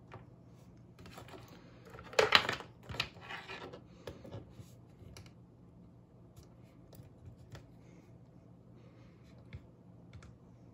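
Hard plastic Toybiz Spider-Man action figures being handled and stood up on a wooden shelf: small clicks, taps and scrapes, with a louder clatter of knocks and scraping about two seconds in.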